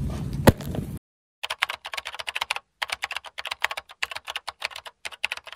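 Computer keyboard typing sound effect: rapid key clicks, broken by a short pause about a third of the way through. It starts after about a second of store background noise that holds one sharp, loud click.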